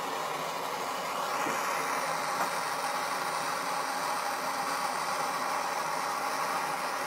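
Hand-held blow torch flame hissing steadily as it heats a copper pipe fitting for soldering.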